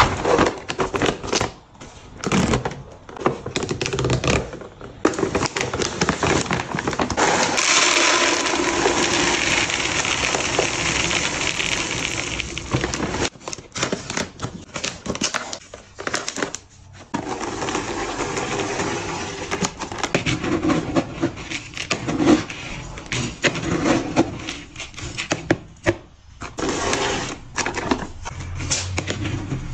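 Cat-food bags crinkling, then dry cat kibble poured from a bag into a canister in a steady rattling stream lasting several seconds. After that a scoop stirs and scrapes through the kibble with many small clicks.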